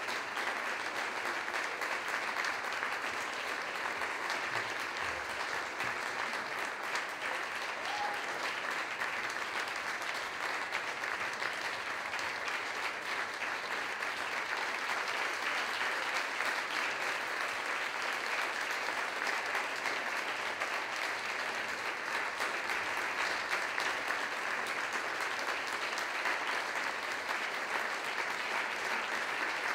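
Audience applauding: dense, even clapping that keeps up without a break.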